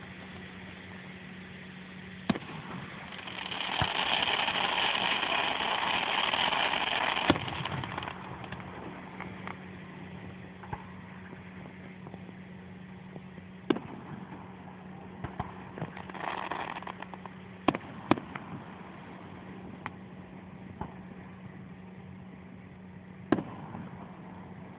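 Aerial fireworks shells bursting in the distance: about six sharp bangs a few seconds apart, two of them close together. A few seconds in there is a stretch of dense crackle lasting about four seconds, and a shorter one later.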